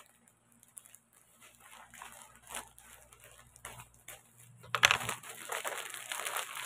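Black plastic courier mailer bag crinkling as it is handled: faint, scattered crackles at first, then a sharp loud crackle about five seconds in and steady crinkling after it as the bag is gripped and pulled.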